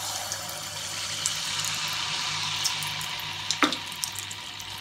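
Semolina malpua batter deep-frying in hot oil in a kadhai: a steady sizzle with scattered crackling pops as the batter hits the oil, and one louder pop a little past halfway.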